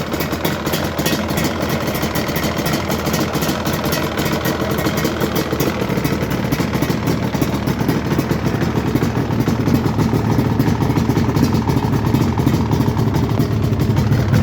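Yamaha Banshee quad's twin-cylinder two-stroke engine running near idle through aftermarket expansion-chamber exhausts, a rapid steady stream of exhaust pulses that grows a little louder toward the end.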